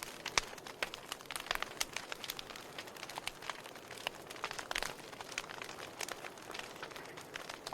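Wood fire burning in a fireplace, crackling: a soft steady hiss with many irregular sharp pops and snaps, a louder cluster of crackles a little past halfway.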